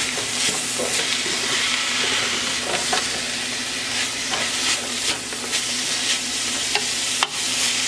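Sliced bell peppers, broccoli and onion sizzling in a large metal pot as a wooden spatula stirs them, with a steady hiss and the spatula knocking against the pot now and then, once more sharply near the end.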